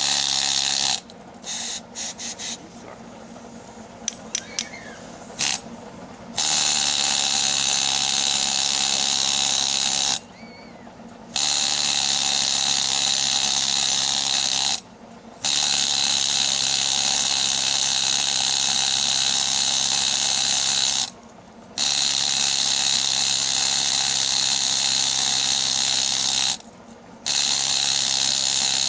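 A power tool running in several long runs of a few seconds each, stopping and restarting abruptly with short gaps between, with a steady mechanical whir and rattle.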